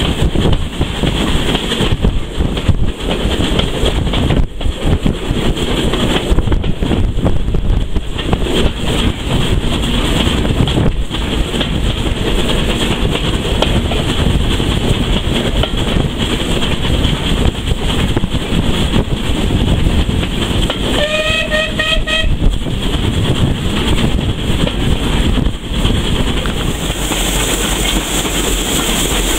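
A heritage railway train running along the track with a steady rumble and wheel clatter. About two-thirds of the way through, a whistle sounds for about a second and a half.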